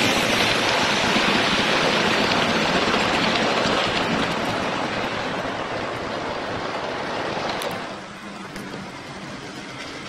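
Model train rolling past close by on the layout's track, a steady rushing rumble of wheels on rail that fades as it moves away and drops off sharply about eight seconds in.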